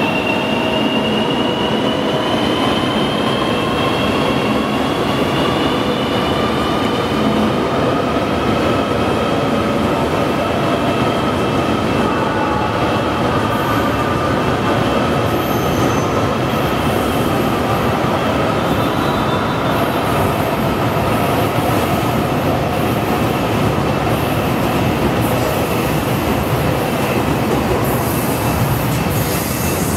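High-speed electric train running past along a station platform: a steady loud rolling rumble and rushing noise, with a few whining tones that slowly shift in pitch.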